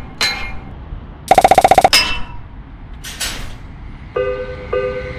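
Railroad crossing warning sounds: a few single bell dings, a brief rapid bell ring about a second in, then about four seconds in an electronic crossing alarm starts, a chiming tone repeating about twice a second.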